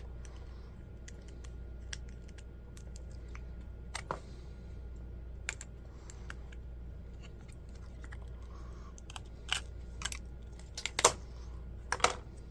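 Small plastic and metal parts of a laptop clicking and tapping as it is taken apart by hand, scattered at first, with a cluster of sharper, louder clicks in the last few seconds, over a steady low hum.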